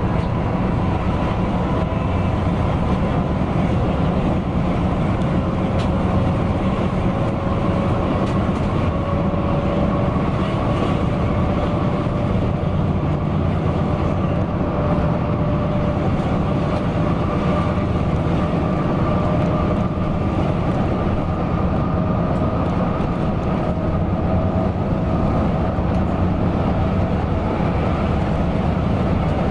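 Cabin noise of a Mercedes-Benz OC 500 RF 2542 coach bus under way: a steady low rumble and road noise, with a faint drivetrain whine that rises slowly in pitch as the bus gradually gathers speed.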